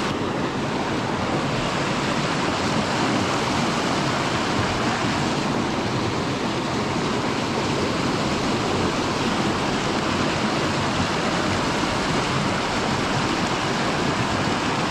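Fast creek water rushing steadily over rocks and through a riffle.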